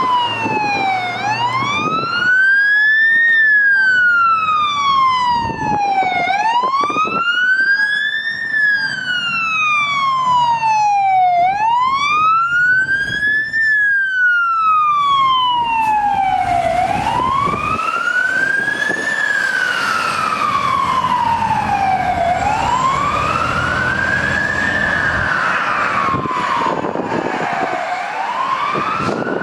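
Fire engine's electronic siren on a slow wail, its pitch climbing and falling over and over, each rise and fall taking about five seconds. A broad rush of noise builds beneath it from about halfway through.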